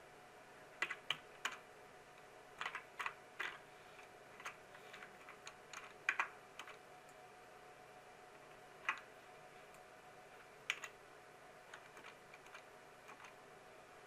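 Computer keyboard keystrokes as code is typed and lines are indented, in irregular clusters with pauses between them.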